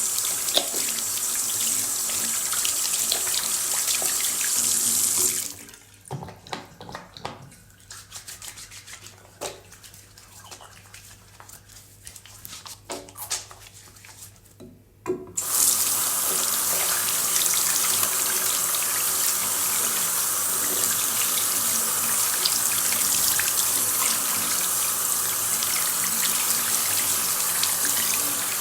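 Water tap running into a sink as hands are washed. The tap shuts off about five seconds in, and for about ten seconds there are only soft wet rubbing sounds and small clicks of hands being lathered. Then the tap is turned back on and runs steadily again.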